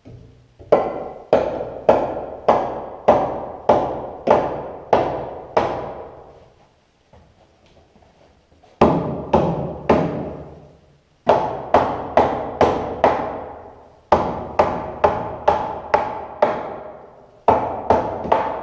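Hammer driving nails into wooden framing studs: runs of steady blows, about two a second, each ringing briefly, with short pauses between runs.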